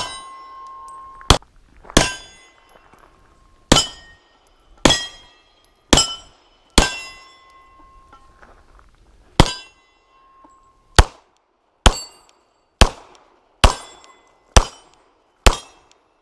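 Gunshots striking steel targets: about fourteen sharp shots at uneven spacing, each followed by the metallic clang and ring of a steel plate. The shots come closer together, about one a second, toward the end.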